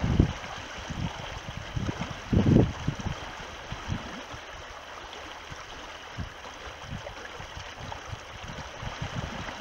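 Fast-flowing river rushing steadily, with a few dull low thumps scattered through it, the loudest about two and a half seconds in.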